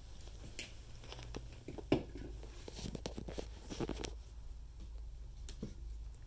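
Rustling and crinkling among clutter, with scattered light clicks and knocks, mostly in the first four seconds and again briefly near the end, over a low steady rumble.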